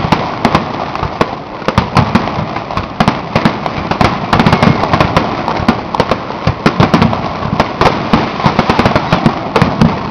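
Aerial fireworks display with many shells bursting in rapid succession: a continuous run of sharp bangs, several a second, without a break.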